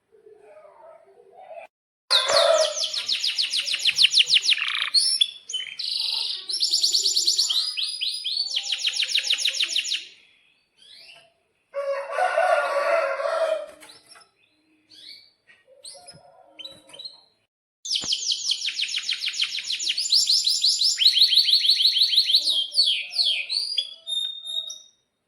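Domestic canary singing: long rolling trills of rapidly repeated high notes in two long runs, broken by a lower buzzy phrase and short chirps in between.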